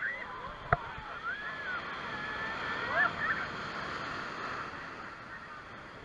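A steady wash of sea water, with faint high calls gliding up and down over it and a sharp click about a second in.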